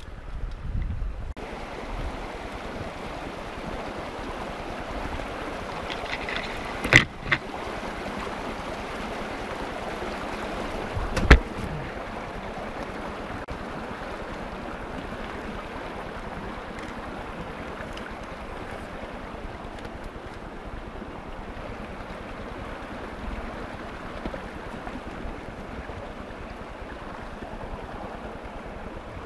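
Steady wind rushing through the woods and over the microphone, with two sharp clicks about seven and eleven seconds in.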